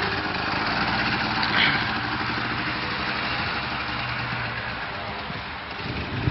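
Four-wheeler (ATV) engine running steadily under way in gear, just after the clutch has been let out. The note dips slightly near the end, then picks up again.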